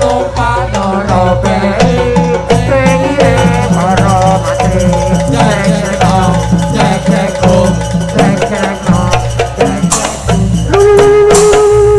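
Jaranan ensemble music: drums beat a fast, steady rhythm with rattling percussion under a wavering melody line. Near the end a single long note is held.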